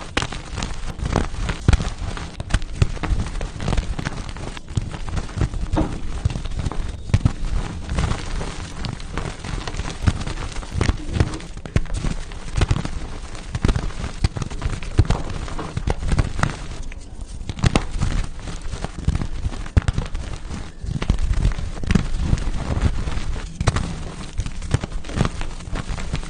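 Pasted (reformed) gym chalk being crushed and crumbled: dense, continuous crunching and crackling with many sharp cracks.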